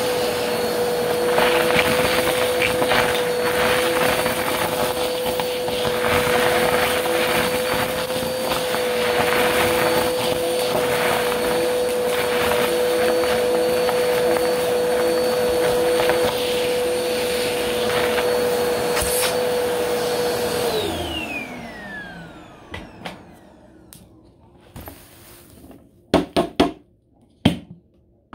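Upright bagless vacuum cleaner running steadily with a hum and a faint high whine, crackling as it sucks up confetti and glitter through its crevice tool. About three-quarters of the way through it is switched off and the motor whine falls away as it spins down, followed by a few sharp knocks near the end.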